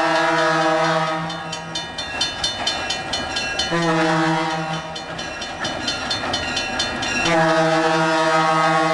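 Instrumental music track built from train sounds: a held train-horn tone sounds three times, and between the blasts runs a rapid, regular clicking of typewriter keys.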